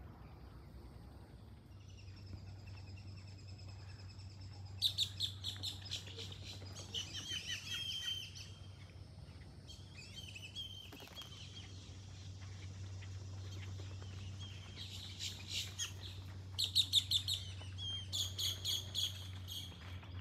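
A small songbird singing in several phrases of rapid, high, repeated chirping notes, the loudest phrases near the middle and toward the end.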